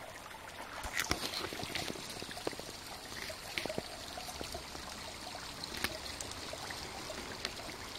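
Steady trickle of running water, with a few short splashes and scrapes from an Akita pawing and nosing at a shallow muddy puddle, the first about a second in.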